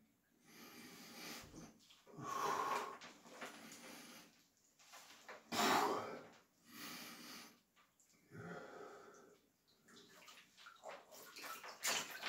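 A man breathing heavily in an ice bath: a series of long, loud breaths in and out, each about a second long, the loudest about six seconds in. Near the end, water sloshes and splashes in the tub as he moves his arms.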